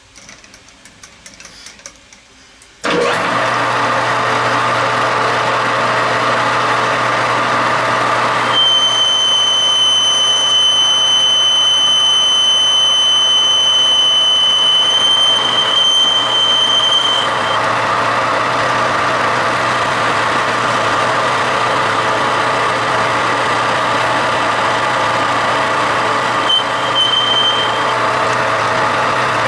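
A metal-cutting machine tool switches on about three seconds in and runs steadily through a cut taking about 20 thousandths out of a bore. A high-pitched squeal from the cut rides over it from about eight to seventeen seconds, and again briefly near the end.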